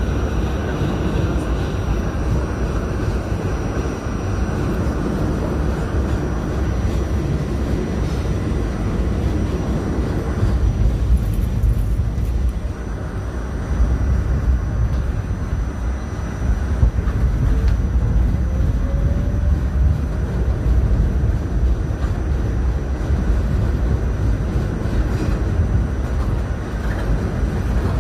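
R68A subway car running at speed through a tunnel: a steady, heavy rumble of wheels on rails, easing briefly about halfway through, with a faint rising whine a little later.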